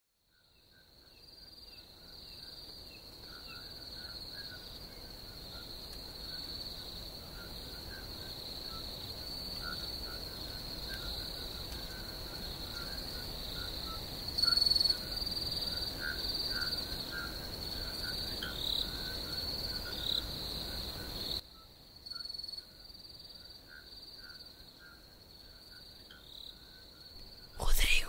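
Crickets chirring, a steady high trill with softer, lower chirping under it. It fades in at the start, and a low background rumble under it drops away about three-quarters of the way through.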